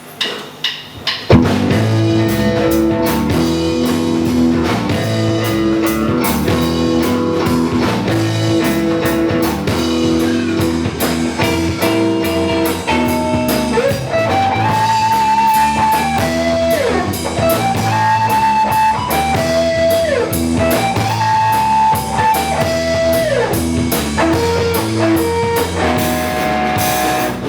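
Instrumental intro of a rock song: guitar chords over a drum kit, after a short quiet fade-in. About halfway through, a lead melody with sliding, bending notes comes in over the rhythm.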